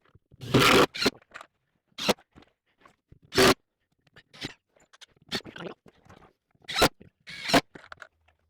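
A series of short, irregular scrapes, some in quick clusters, with quiet gaps between.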